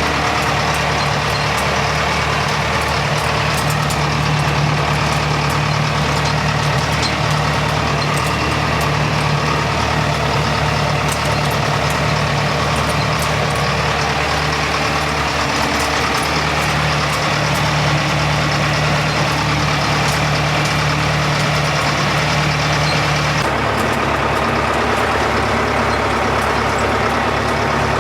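Tractor engine running steadily while pulling a hay rake, with small rattling ticks throughout. About 23 seconds in the sound shifts: the higher noise drops and the engine note changes.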